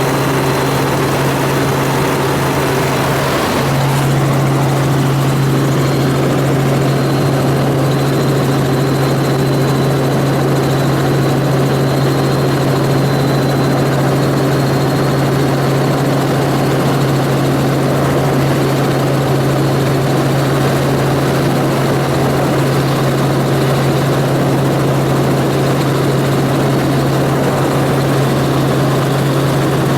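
Helicopter in flight: a steady drone of rotor and turbine with a strong low hum, which grows a little louder about three and a half seconds in.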